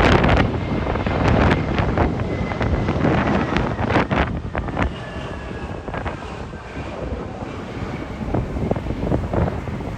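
Strong gusty wind buffeting the microphone in loud irregular blasts, easing a little in the second half. Underneath, the faint whine of an Airbus A320's jet engines, falling slightly in pitch around the middle.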